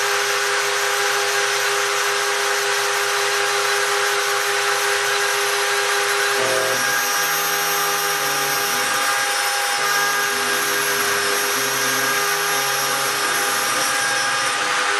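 Home-built CNC gantry mill engraving brass: the spindle runs with a steady high whine over a cutting hiss, while lower motor tones change pitch in steps from about six seconds in as the axes move.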